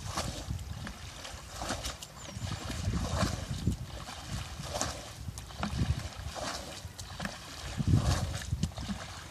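Muddy pond water splashing and sloshing as it is scooped and tipped out by hand with a container, in irregular splashes every second or two. A low, uneven rumble runs underneath and swells loudest near the end.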